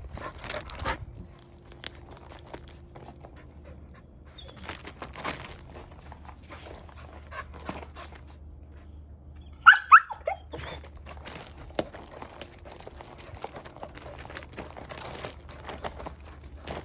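Dog giving two short, sharp, high-pitched barks close together about ten seconds in, with scattered light clicks and rustles around them.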